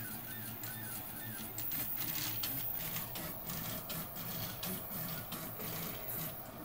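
Desktop FDM 3D printer printing: its stepper motors whir and buzz in short, irregular moves as the print head travels.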